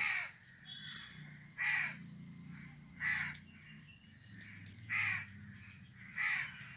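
A crow cawing repeatedly: five loud, harsh caws spaced about a second and a half apart.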